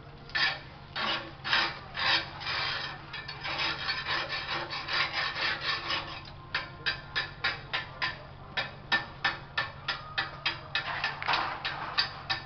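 Hands rubbing and scraping over a gritty sand surface in a floor pit, in repeated strokes: irregular at first, then a steady rhythm of about three strokes a second from around the middle on.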